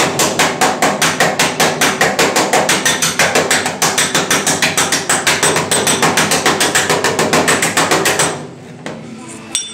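Pneumatic air hammer driving a slapping spoon against the steel rear quarter panel of a 1968 Mustang fastback, set at about 40 psi, with a dolly held behind the panel. It makes a rapid, even stream of light strikes that raise the low spots smooth. The hammering stops about eight seconds in.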